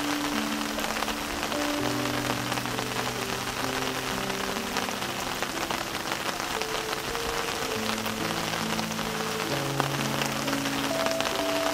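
Steady rain falling and pattering on rocks and leaves, with soft background music of slow, held low notes under it.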